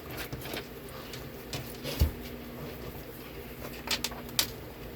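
Hands handling a junk journal and its embellished fabric closure: light rustling with small clicks and taps, a soft thump about two seconds in and a few sharp clicks near four seconds.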